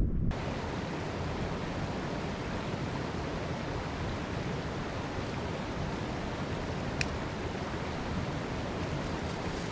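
Steady rush of a shallow creek flowing over rocks, with one faint click about seven seconds in.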